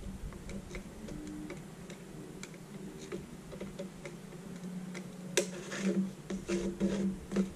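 Scattered light clicks and ticks as an aluminium heatsink bar carrying an LED strip is pushed into the edge of an LCD panel's metal frame. There is a sharper click about five seconds in and a few more near the end, over a faint steady hum.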